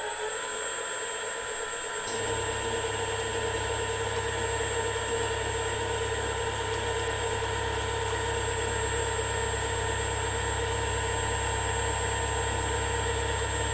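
Milling machine running a 12 mm high-speed steel roughing end mill on a light side-milling pass: a steady whine with several fixed pitches. A lower hum joins with a small click about two seconds in.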